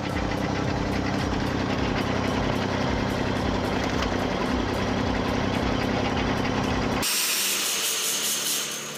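Tractor engine running steadily, powering a tractor-mounted wood splitter. About seven seconds in it cuts abruptly to a different, higher hissing machine noise.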